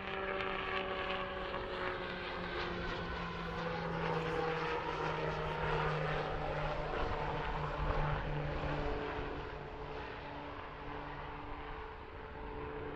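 A small business aircraft passes close by on landing. Its engines' steady tones slide down in pitch as it goes past, over a rushing noise that is loudest midway and then eases off.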